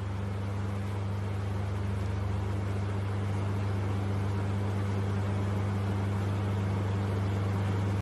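A steady low hum over an even hiss, holding the same pitch and level throughout.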